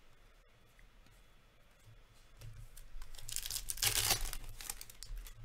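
A hockey card pack's wrapper torn open by hand: a crinkly tearing starting about three seconds in and lasting about a second and a half, after light rustling as cards are handled.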